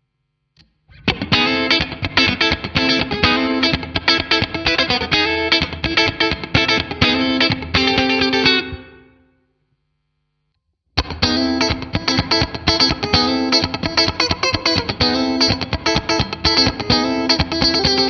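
Fender Stratocaster played through a NUX MG-30 modelling a Roland JC-120 clean amp, recorded direct: fast, choppy funk rhythm chords. There are two phrases, with about two seconds of silence between them.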